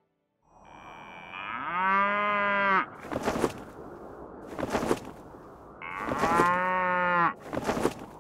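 A cow mooing twice, each moo rising at first and then held for about a second and a half, the first about a second and a half in and the second about six seconds in. A few short, sharp knocks follow each moo.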